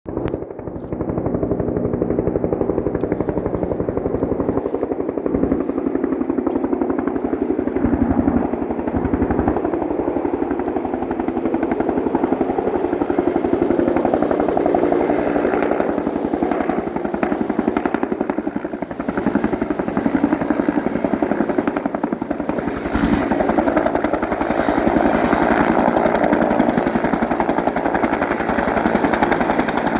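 Bell 205 helicopter's two-blade main rotor beating steadily over the running of its turbine engine as it comes in to land. A thin high whine sets in about two-thirds of the way through, and the sound grows louder soon after.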